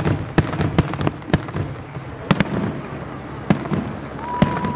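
Aerial fireworks display: a rapid run of shell bursts, sharp bangs every fraction of a second with crackling between them. A short whistling tone sounds near the end.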